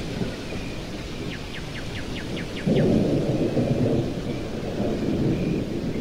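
Thunder rumbling from an approaching storm, swelling suddenly into a louder roll about three seconds in and then fading, over a steady low rush of stormy wind. Just before the roll, a quick run of high ticks about six a second sounds for about a second.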